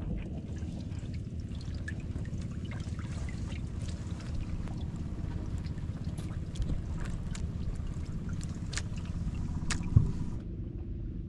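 Water trickling and dripping around a small wooden outrigger boat, with scattered faint ticks over a steady low rumble of wind on the microphone. A single louder knock comes about ten seconds in.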